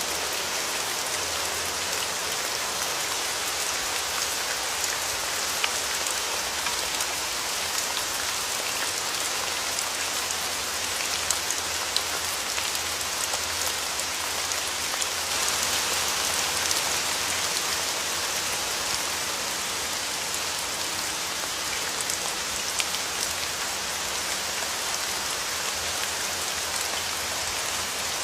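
Steady rain falling, with single drops now and then striking close by as sharp ticks. It grows a little heavier about halfway through.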